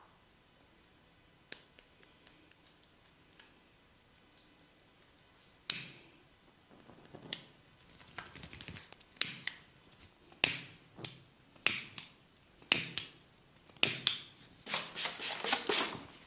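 Sharp cracks and slaps from a barber's hands working a client's head in a massage, about one a second, then a quick run of rapid strikes near the end.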